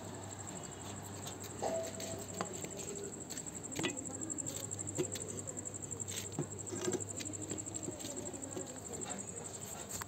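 Crickets chirping in a steady high trill, with scattered light taps and clicks over it.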